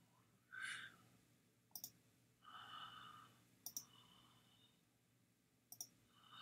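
Three soft computer mouse clicks about two seconds apart, each a quick double tick, with faint breathy sighs between them.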